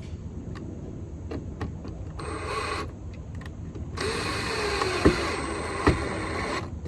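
Power drill driving a screw: a short run, then a longer steady run of about two and a half seconds, with two sharp knocks during it.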